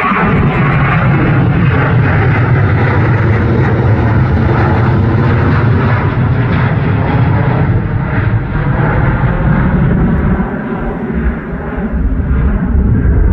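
Boeing 737-800 jet engines at takeoff thrust as the airliner climbs out directly overhead: a loud, steady jet rumble that grows duller as the aircraft moves away.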